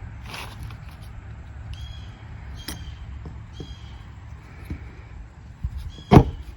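Small clicks and knocks of oil-filter parts and tools being handled over a low steady rumble, with two short high chirps and one loud thump about six seconds in.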